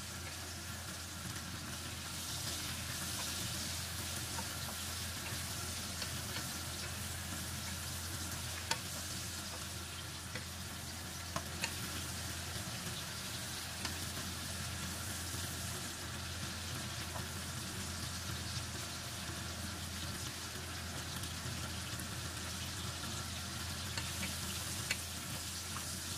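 Pork pieces frying in rendered pork fat in a stone-coated wok: a steady sizzle, stirred with a wooden spatula, with a few sharp clicks along the way.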